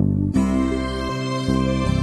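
Instrumental background music: sustained chords over a bass line that changes note about every half second, with a brighter layer of higher notes coming in a moment after the start.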